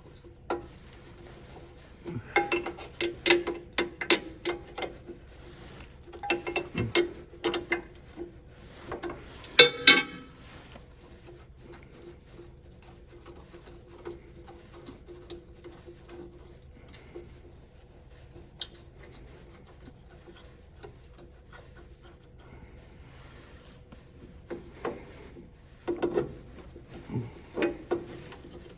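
A 9/16 wrench working a battery-cable bolt: bursts of metal clicks and scraping, with a long lull in the middle and more clicking near the end. The bolt keeps spinning instead of tightening.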